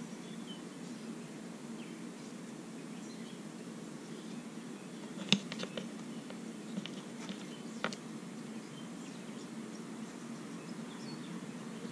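A few small metallic clicks and taps as brake master cylinder parts and tools are handled, the sharpest about five seconds in and another near eight seconds, over a low steady background hum.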